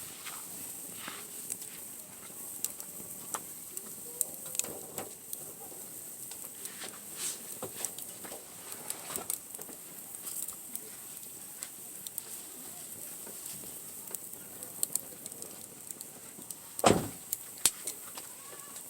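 Wood fire crackling, with irregular sharp pops and snaps, and one louder knock near the end.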